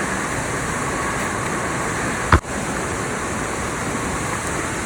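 Waterfall rushing steadily, with one short sharp knock about halfway through.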